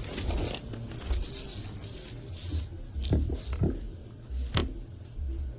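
Rustling and handling noises close to the microphone, with three sharp clicks between about three and four and a half seconds in, over a low hum.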